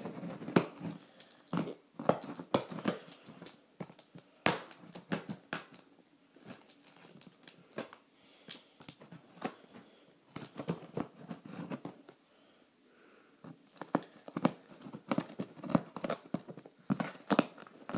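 A knife slitting packing tape and scraping at a cardboard box, with irregular scrapes, tearing and crinkling. After a short lull about two-thirds through, the scraping comes faster near the end.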